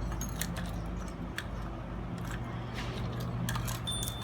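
Irregular small clicks and light taps of alarm-clock parts being handled and worked on by hand, over a low steady hum.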